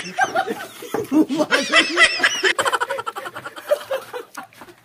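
Several men laughing hard together in quick, overlapping bursts, dying down near the end.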